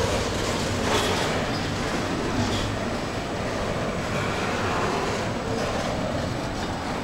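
Double-stack intermodal well cars rolling past close by: a steady, even noise of steel wheels on rail.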